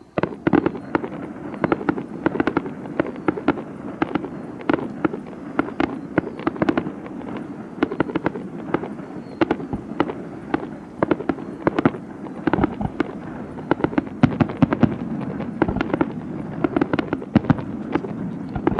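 Fireworks display: a dense, continuous barrage of sharp bangs and crackles over a steady rumble, starting abruptly at the opening.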